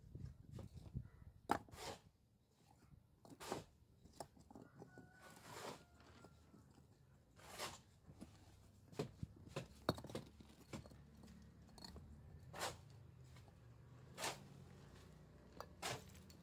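Scattered short crunches and knocks of stone and gritty mortar as a worker steps about on a freshly laid rubble-stone foundation, about a dozen irregular clicks over a faint low rumble.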